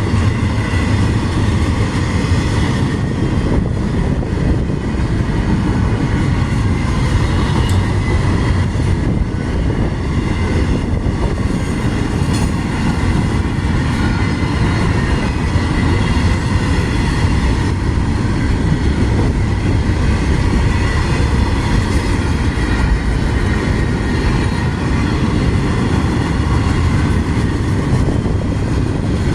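Loud, steady rumble and rattle of a long CSX freight train's cars rolling past on the rails.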